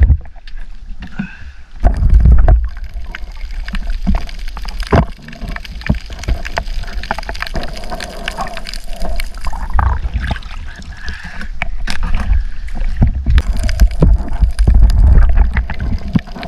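Sea water sloshing and gurgling close around the camera, with scattered knocks. Heavy low rumbles come about two seconds in and again near the end.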